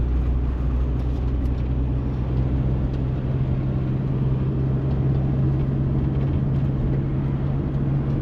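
Self-built camper van driving, heard from inside the cabin: a steady low engine and road drone whose low note steps up about three seconds in.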